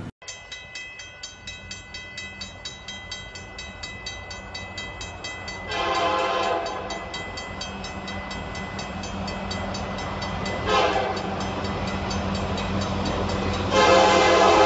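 Railroad crossing bell dinging rapidly and evenly while a Union Pacific diesel locomotive approaches, its rumble growing louder. The locomotive's air horn blasts about six seconds in, again briefly later, and then a long loud blast near the end.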